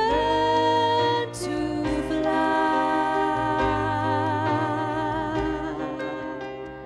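Slow ballad music with long held notes that waver with vibrato over a steady low bass note, the chords changing every second or two.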